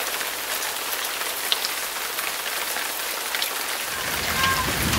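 Heavy rain and hail pelting down: a dense, steady hiss dotted with many sharp ticks of hailstones striking. A low rumble joins about four seconds in.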